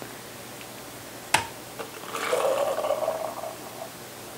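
A slotted spoon knocks sharply once on the canning funnel. Then a spoonful of wet baked beans in molasses sauce slides off it through the plastic funnel into a glass pint jar, with a wet, sloshing sound lasting about a second and a half.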